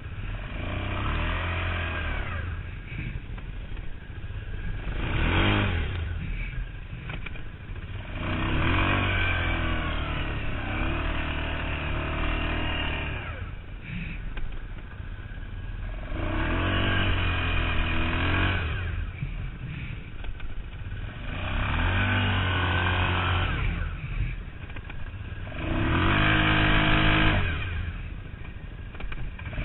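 Arctic Cat ATV running on Camoplast Tatou 4S tracks, its engine revving up and easing off about seven times in a row as it is ridden through snow.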